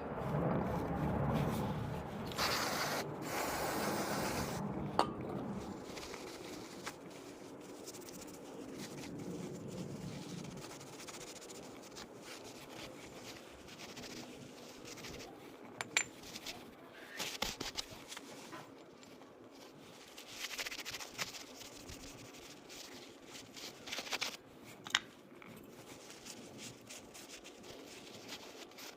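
Hand work with small metal parts and tools: rubbing and scraping, with scattered sharp metallic clicks and clinks.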